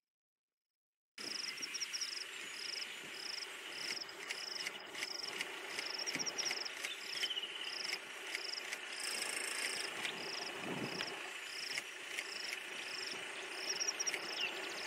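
Insects calling in the bush, starting about a second in: a buzzy chirp that repeats about every two-thirds of a second over a steady, high-pitched insect drone.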